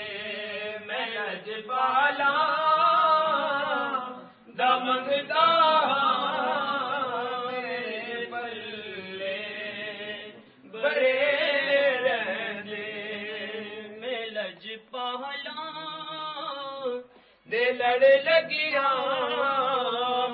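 A man's voice chanting devotional Punjabi verse without accompaniment, in long wavering sung phrases. There are three short breaks for breath.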